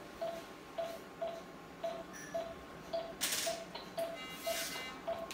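Electronic medical equipment beeping steadily, one short mid-pitched beep about every half second. There are two brief hissing rustles about three and four and a half seconds in.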